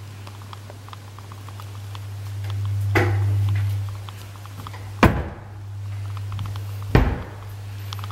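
Built-in cabinet doors being shut: three thunks, a softer one about three seconds in and two sharper, louder ones about five and seven seconds in, over a steady low hum.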